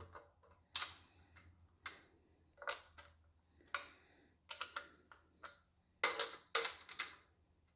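Nut driver clicking against the valve cover bolts of a Chevy 305 small-block as they are snugged down with very little pressure, so the valve cover doesn't dent. Scattered sharp metal clicks, with a louder cluster about six seconds in.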